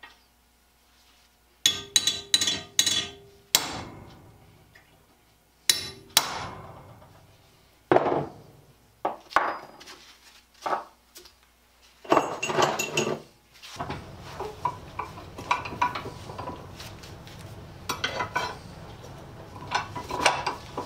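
Metal clinks and knocks as a steel bar is handled and set in a cast-iron bench vise: a quick run of sharp strikes, then scattered single knocks. About two-thirds of the way through a steady low hum comes in under further lighter clinks.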